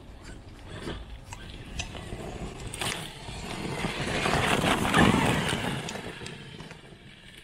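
Traxxas X-Maxx 8S RC monster truck driving through snow on paddle tires, its drivetrain running and the tires churning and throwing snow. It grows louder as the truck approaches, is loudest about five seconds in as it passes close, then fades away.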